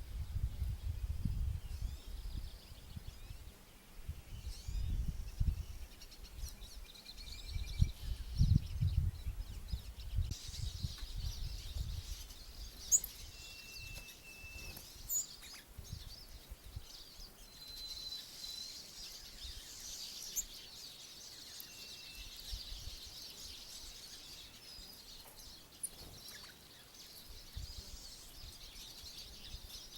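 Small songbirds chirping and twittering, with a few short whistled notes; the chatter grows denser after about ten seconds. A low, uneven rumble, like wind on the microphone, runs underneath for roughly the first ten seconds.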